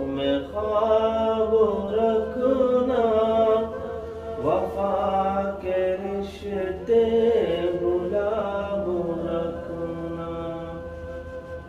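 A man's voice singing an Urdu ghazal in slow, drawn-out melodic phrases with long held notes; the singing grows quieter near the end.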